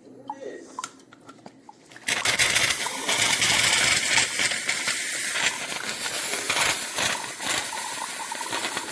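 Single-serve coffee maker starting a brew: a few small clicks, then about two seconds in a sudden, steady rush of pumped hot water with a loud hiss.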